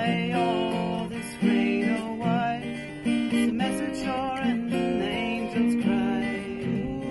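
Acoustic guitar strummed in a slow, steady rhythm, its chords changing every second or so, with a woman's voice singing a wavering melody over it.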